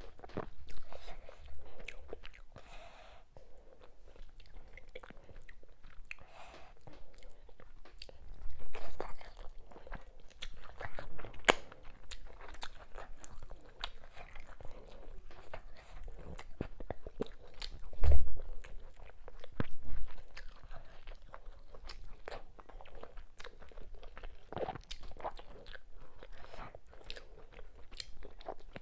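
Close-miked chewing and lip-smacking as fufu with ogbono soup and smoked fish is eaten by hand, a run of short wet clicks and smacks. Two dull thumps come about halfway through, the first the loudest sound here.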